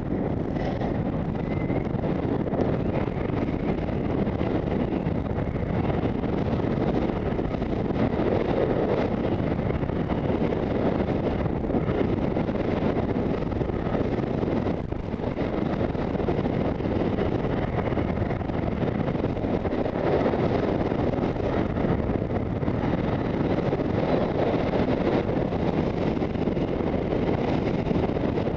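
Wind rushing over the microphone of a head-mounted camera while skiing downhill at speed, mixed with the steady hiss of skis sliding over packed snow. The noise builds over the first second as the skier gathers speed, then holds, with a short lull a little past halfway.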